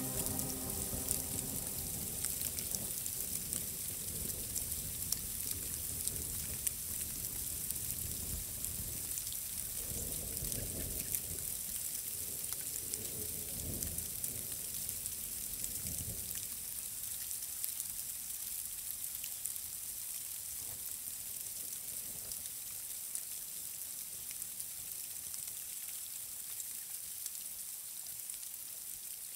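Steady hiss of rain with a fine crackling patter, slowly getting quieter; a low uneven rumble underneath dies away about halfway through.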